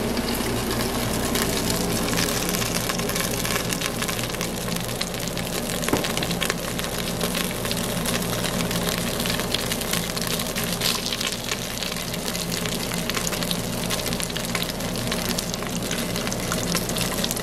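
Floured chuck steak sizzling in hot oil in an Instant Pot's stainless inner pot on the sauté setting: a steady crackling sizzle with dense fine pops, as the meat browns.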